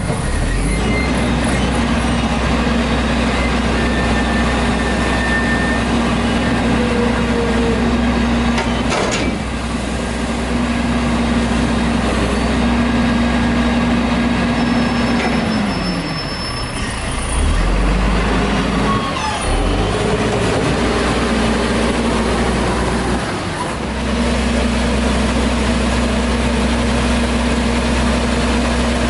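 Front-loader garbage truck's diesel engine held at raised revs to drive the hydraulics as the arms lift a trash container up over the cab, with a sharp knock about a third of the way in. The revs fall away around the middle, shift for a few seconds, then rise and hold steady again.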